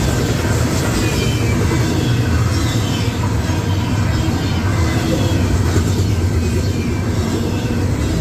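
Union Pacific freight cars, autoracks and double-stack container cars, rolling past close by: a loud, steady rumble of steel wheels on rail.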